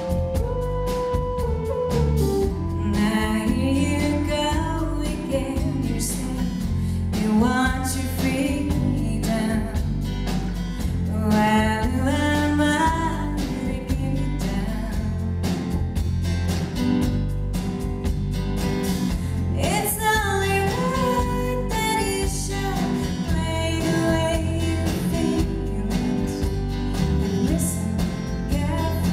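Live band performance with a woman singing lead over drums, bass guitar and guitar. The vocal comes in about two seconds in, in sung phrases over a steady band.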